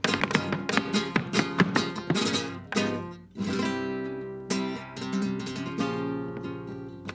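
Flamenco guitar played live on an acoustic guitar. A quick flurry of sharp strums runs for about three seconds, then sustained ringing chords are struck about once a second.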